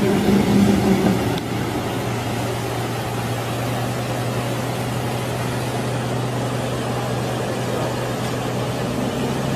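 Semi-truck's diesel engine running steadily at a low pitch as the truck wades through a flooded river crossing, over the steady rush of fast-flowing water.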